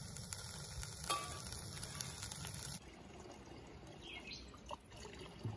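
A pot of pasta cooking on a Coleman propane camp stove, hissing and sizzling with scattered small clicks. About three seconds in it cuts off abruptly to a quieter outdoor background with a brief faint chirp.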